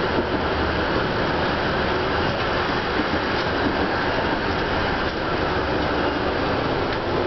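TTC CLRV streetcar running along its track, heard from inside the car: a steady noise of steel wheels rolling on the rails.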